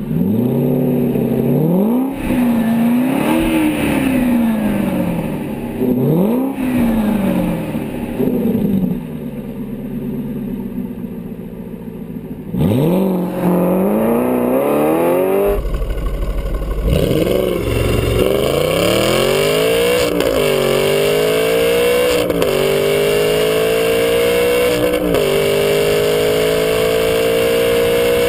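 The 4.7-litre V8 of a 2011 Aston Martin V8 Vantage S is first revved several times while stationary in neutral, the note rising and falling with each blip. From about the middle it accelerates hard, the pitch climbing steadily towards about 7,000 rpm and dipping sharply at each upshift.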